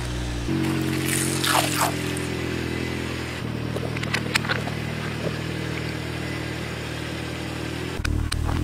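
A car's engine runs at low speed as its tyre rolls over and crushes objects: a foil balloon, water-filled gel-bead balloons and a soda can. Crinkling and crackling come from about a second in, and a few sharp pops or clicks come around the middle. The engine note changes abruptly three times.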